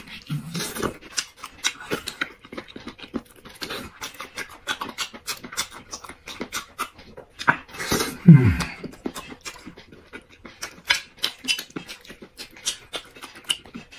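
Close-up chewing and lip-smacking of a person eating, many quick irregular wet clicks throughout. About eight seconds in, a short, louder vocal sound falls in pitch.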